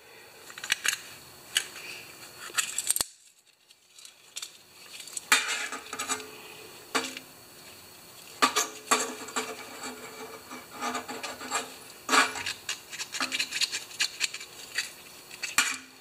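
A shop rag rubbing and rustling in nitrile-gloved hands, with small sharp metal clicks and scratches as a set of thin carburetor jet-cleaning wires is handled, and a short lull about three seconds in.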